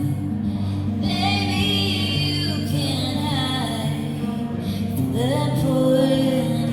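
A woman singing an original indie song over steady, sustained instrumental chords.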